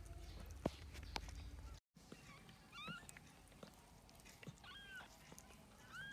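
Newborn kittens mewing: a few short, high-pitched cries, the first coming about three seconds in.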